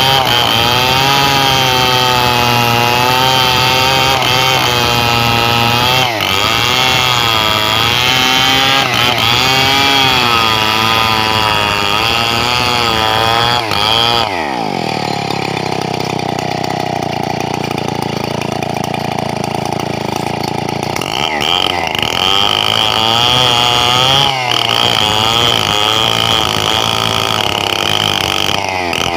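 Stihl 070 two-stroke chainsaw cutting teak, its engine pitch wavering under load. About halfway through the engine speed drops sharply and it runs lower, then picks up again later.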